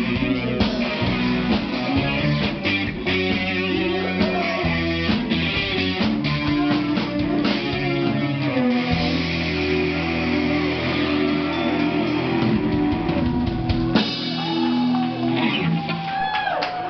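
Rock band playing live: electric guitar over bass and drums. About 14 seconds in the song winds down to a held chord, and voices rise near the end.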